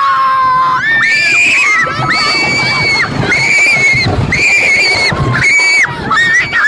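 Roller-coaster riders screaming, a string of long, high held screams about one a second, over the rumble of the ride.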